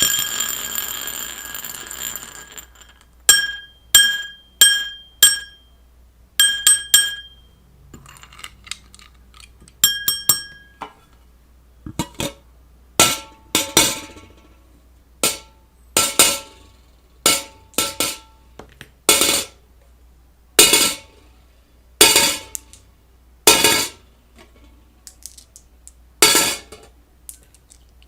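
A loud ringing from just before fades out over the first two seconds. Then comes an irregular series of sharp glass clinks, each with a brief ring: a higher-pitched ring at first, and from about halfway in a lower-pitched one with more spaced-out strikes.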